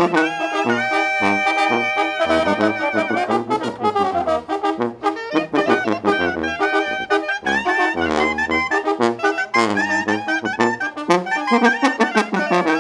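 Mexican banda, a brass band, playing live: trumpets, trombones and saxophones carry the melody over a low bass line and steady drum hits.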